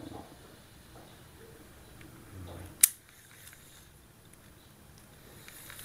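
Baitcasting reel handled in the hands, with one sharp mechanical click about three seconds in, typical of the reel's clutch snapping into or out of free-spool, and faint rubbing of hands on the reel body.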